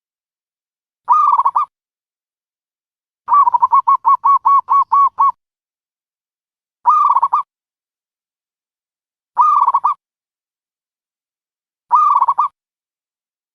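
Dove calling: short pitched calls of about half a second, repeated every few seconds, and about three seconds in a rapid run of about ten notes lasting some two seconds.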